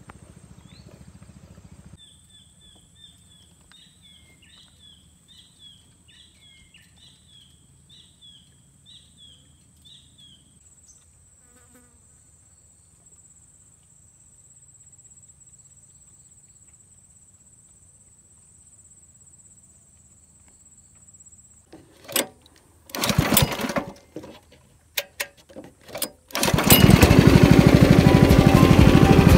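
A high chirping call repeats many times over quiet, still surroundings for the first ten seconds or so. Near the end a small boat engine sputters in a few short bursts, then catches and runs loudly and steadily.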